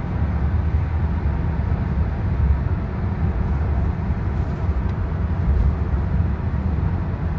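Steady low road and engine rumble inside the cabin of a moving car, heard through a phone's microphone.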